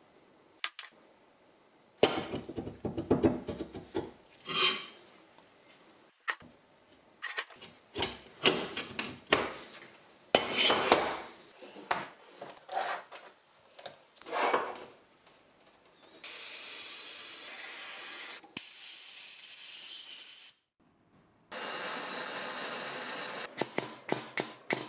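Steel compressor clutch parts and a pulley clinking, clanking and scraping as they are handled on a steel workbench and vise. In the second half there are three stretches of steady hissing, each about two seconds long, from welding the parts together.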